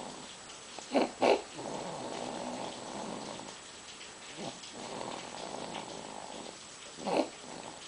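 Baby snoring: long, rattling, purr-like snores, with short, louder snorting breaths about a second in and again near the end.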